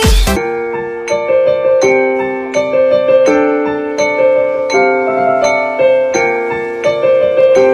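Background music: a slow, gentle piano-like keyboard melody, one struck note about every two-thirds of a second, each ringing on over held chord tones. A different song cuts off just at the start.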